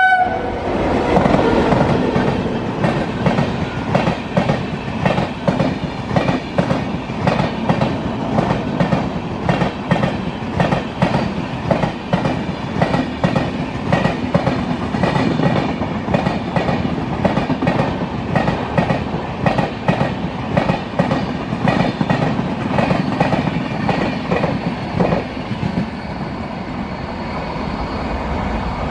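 Long passenger train hauled by a WAP-7 electric locomotive running through: a steady rumble with a fast, regular clickety-clack of coach wheels over the rail joints, easing near the end as the last coach passes.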